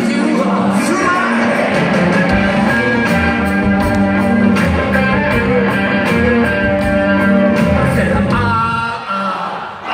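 Live rock band playing in a concert hall, recorded from the audience: held bass notes and guitar with a singing voice, and drums coming in about two seconds in. The music drops away briefly near the end.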